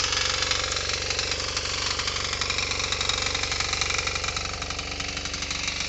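KisanKraft 350D power tiller's engine running steadily with a fast, even beat while the tiller earths up soil along sugarcane rows.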